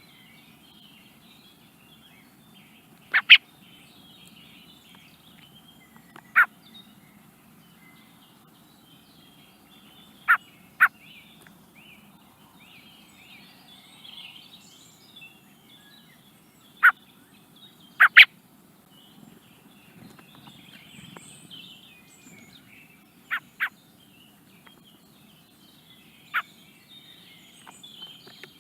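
Young Eurasian blackbird giving short, sharp calls, single or in quick pairs, every few seconds. Faint twittering runs underneath.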